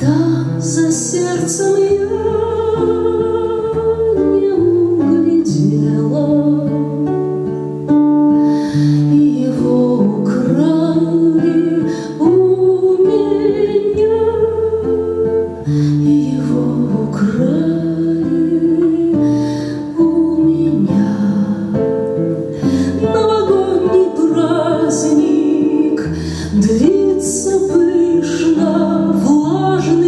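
A woman singing a slow Russian song while accompanying herself on a nylon-string classical guitar with plucked chords and low bass notes.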